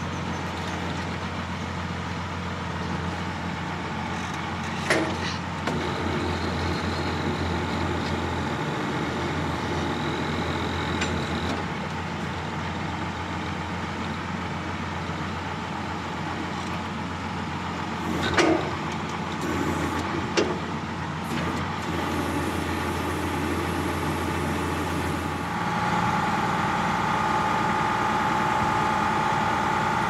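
John Deere tractor engine running steadily, heard from inside the cab, with a few sharp clunks about five seconds in and twice around eighteen to twenty seconds. About 25 seconds in, the engine note changes to a stronger, higher hum.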